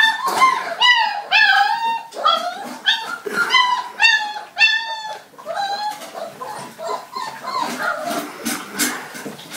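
Puppies whining and yelping in a rapid run of high-pitched cries, about two a second, then fainter whimpers mixed with scattered clicks for the last few seconds.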